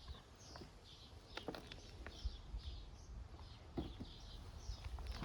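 Soft rustles and knocks of hands sorting through compost and potatoes in a container, with a bird chirping over and over in the background.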